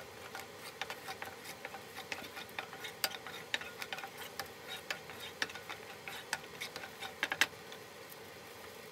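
Red sauce crackling and spitting in hot oil in a pan as it is stirred and spread with a wooden spatula: irregular sharp pops, several a second, dying away about a second before the end.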